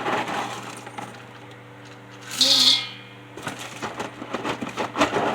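Scoopfuls of dry corn cereal squares rattling and clicking as they are scooped and poured into a bowl, with a brief hiss about halfway through.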